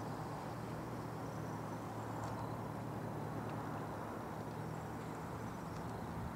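Steady outdoor background: a low, even droning hum with faint high-pitched chirps over it.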